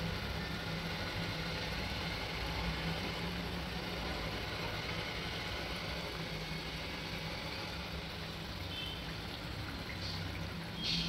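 Pastry parcels deep-frying in hot oil in a pan: a steady sizzle and bubbling of the oil over a low hum.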